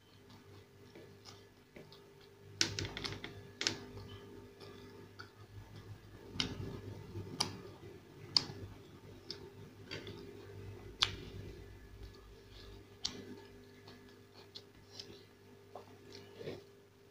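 Eating sounds of a person eating masala dosa and sambar by hand and spoon: scattered sharp clicks and smacks with softer chewing between, over a steady low hum.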